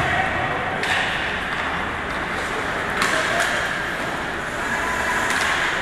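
Ice hockey play: skate blades scraping and carving on the ice over a steady rink noise, with a couple of sharp clacks from sticks and puck, about a second in and again about three seconds in.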